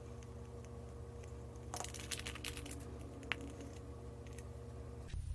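Light clicks and crinkles from hands pressing and handling double-sided carpet tape on a pine board, bunched about two seconds in with a few single clicks after, over a steady low hum.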